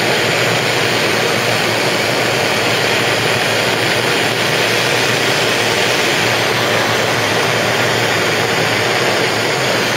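Gas blowtorch flame running with a steady hiss, held on a car body seam to melt off the lead loading.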